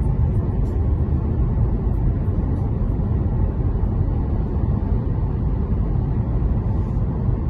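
Steady low rumble of a car being driven, heard from inside the cabin: tyre and engine noise.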